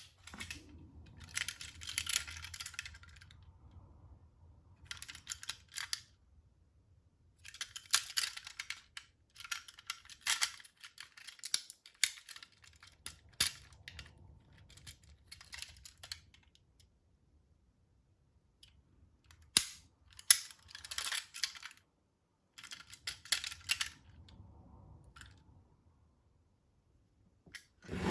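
Tomica die-cast toy ambulance being handled and run over a hard surface: irregular scratchy rattles of a second or two, sharp clicks and a faint low rumble, with long gaps between.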